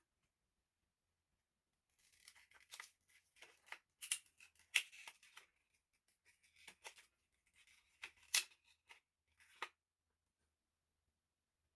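Crinkling and clicking of plastic being handled, in two spells of short crackles, the second starting about six and a half seconds in.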